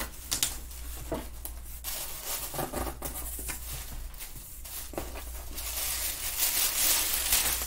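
Cardboard box flaps being opened and handled, with a few short knocks and scrapes, then printed packing paper crinkling and rustling as it is pulled out of the box, loudest near the end.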